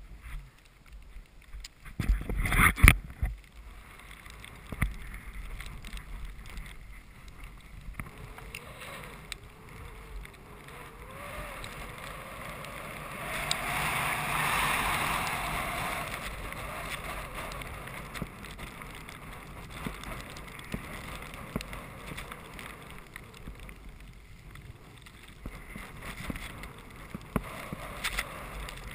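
Skis hissing and rushing through deep powder snow on a descent, with wind on the microphone. A few loud thumps come about two to three seconds in, and the snow rush swells to its loudest around the middle.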